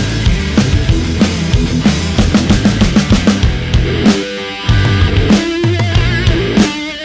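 Background rock music with drums and guitar and a steady beat, briefly thinning out about four seconds in.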